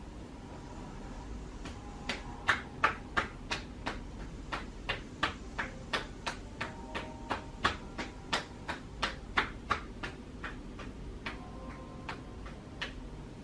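Chair-massage percussion strokes: the masseuse's hands striking the client's neck and shoulders in quick slaps, about three a second. They start about two seconds in, come in uneven strength, and stop near the end.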